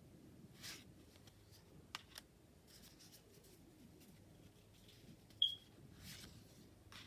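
Tarot cards being handled and flipped through: a few soft paper swishes and light taps, with one short, sharp, high-pitched tick about five and a half seconds in.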